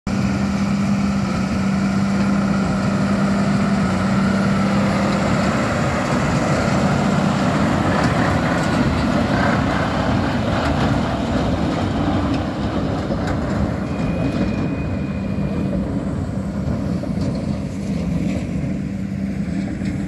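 Tractor pulling a Krone BiG Pack 1290 HDP XC high-density large square baler through straw: a steady engine drone with the baler's machinery running underneath, getting somewhat quieter over the second half.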